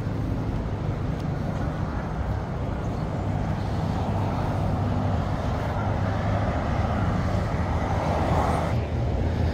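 Steady noise of multi-lane motorway traffic heard from a footbridge above it. The noise grows louder about halfway through and drops back just before the end.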